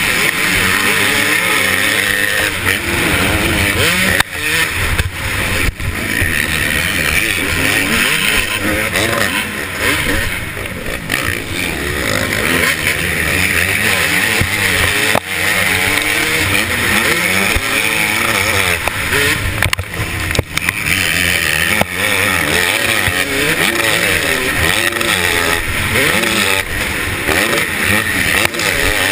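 KTM 250SX two-stroke motocross engine raced hard, the revs rising and falling over and over with throttle and gear changes, heard from the rider's helmet camera. The loudness dips briefly a few times.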